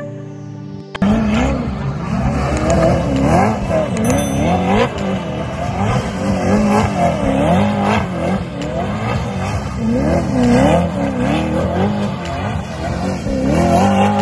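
Koenigsegg hypercar's twin-turbo V8 being revved hard while the car spins donuts on a wet road. The engine pitch rises and falls over and over, with the loud revving starting about a second in.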